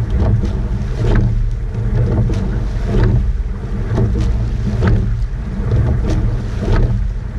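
Rowing eight under way: a rhythmic clunk and splash of the oars with each stroke, about every two seconds, over a steady rumble of wind on the microphone and water rushing past the hull.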